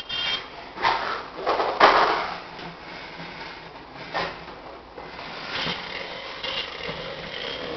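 Knocks and scrapes of a child's plastic ride-on toy quad bumping and rolling on a tile floor, with the loudest knock about two seconds in.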